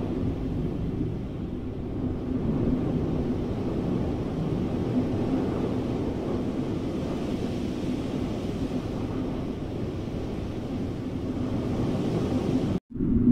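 A steady low rushing wind sound, as of air streaming past in flight through clouds, with a faint held low tone underneath. It cuts out abruptly for a split second near the end, then comes back louder.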